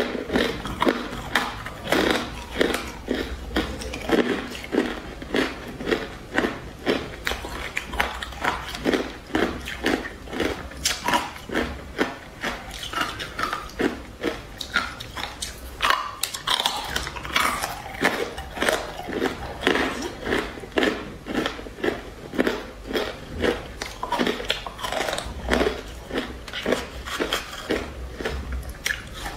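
Hard ice being bitten and chewed in the mouth up close, with rapid, repeated crisp crunches, about two a second.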